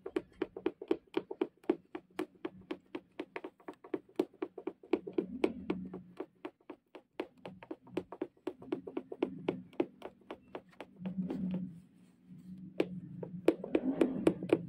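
Oriental punch needle stabbing repeatedly through fabric stretched taut in an embroidery hoop: quick, even ticks about five a second, with a short pause about twelve seconds in.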